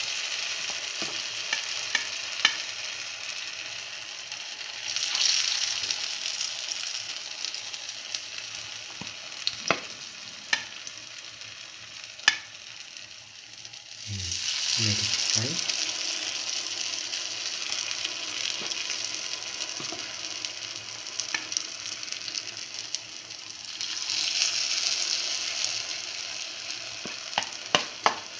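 Hot oil sizzling in the cavities of a cavity pan as spoonfuls of okra and chickpea-flour batter are poured in and fry; the hiss swells loudly three times as fresh batter goes in. Scattered sharp pops and clicks, with a few low knocks in the middle.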